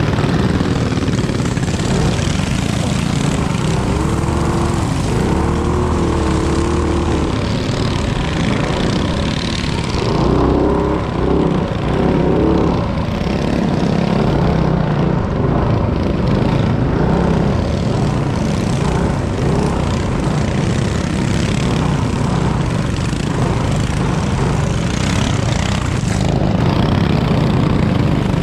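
Small single-cylinder minibike engines running hard, with a dense, steady engine noise whose pitch rises and falls a few times.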